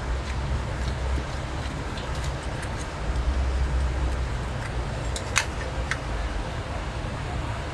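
Small metal parts of an old tap clicking and tapping as it is taken apart, with a sharper click about five and a half seconds in, over a steady low rumble.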